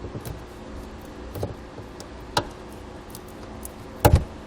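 Light clicks and handling noises from a factory trailer-wiring connector being freed of the tape that holds it to the harness, with one sharper, louder knock about four seconds in.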